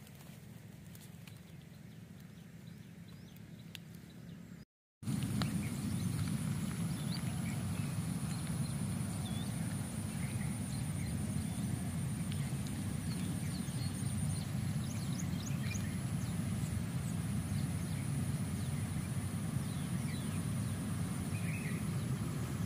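Open-air ambience over rice paddies: wind rumbling on the microphone, a steady high insect trill and scattered short bird chirps. About five seconds in the sound drops out for a moment and comes back louder and windier.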